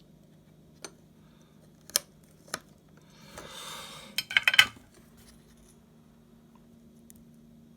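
Small metal hand tool working on thin hook-up wires: a few separate sharp clicks, a short rustle a little past the middle, then a quick cluster of snipping clicks. A faint steady low hum runs underneath.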